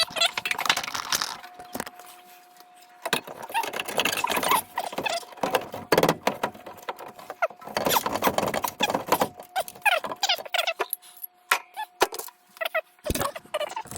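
Irregular clattering and clinking of metal parts being handled on a furnace, with many sharp clicks and a faint steady hum underneath.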